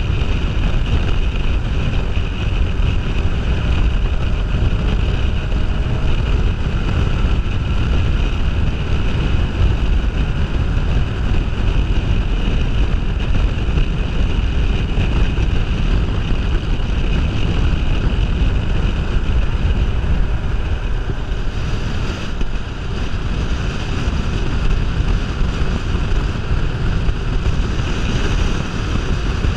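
Wind buffeting the microphone on a Kawasaki Ninja 500R at road speed, a steady rushing roar, with the bike's parallel-twin engine running underneath.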